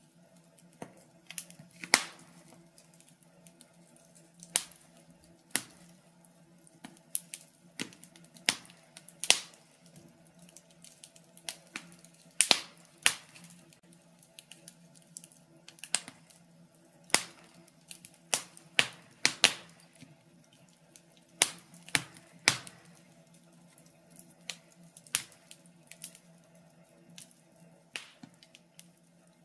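Wood fire in a fireplace crackling, with irregular sharp pops, a few of them loud, over a faint steady hum.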